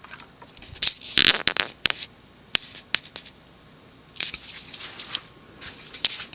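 Scattered sharp clicks and brief rustles of handling noise, with a cluster about a second in and more a few seconds later.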